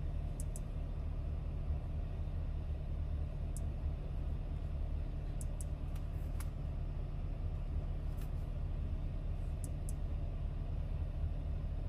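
Steady low rumble of the Lamborghini Urus's 4.0-litre twin-turbo V8 idling, heard inside the cabin. Faint light clicks come now and then, some in quick pairs, as the touchscreen is tapped.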